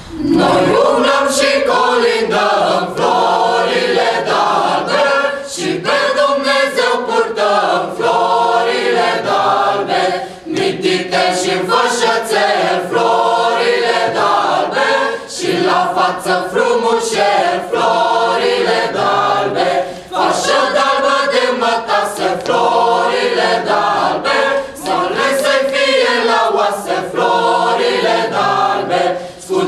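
Mixed choir of young voices singing a Romanian Christmas carol (colindă) unaccompanied, starting right at the beginning, with short breaks between phrases.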